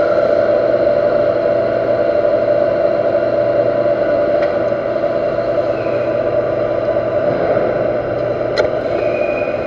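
Universal metal lathe running with a GNMG carbide insert cutting an iron workpiece at an inner shoulder: a steady machining noise with a strong even mid-pitched tone and a low hum. There is one short click near the end.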